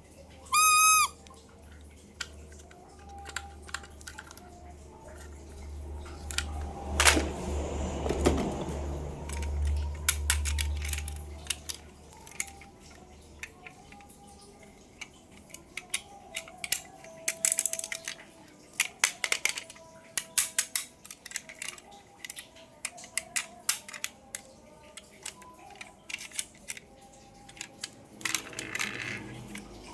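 Toy cars and their plastic packaging being handled: many sharp clicks and taps, with rustling. A short high beep comes about a second in, and a low rumbling scrape runs from about six to twelve seconds.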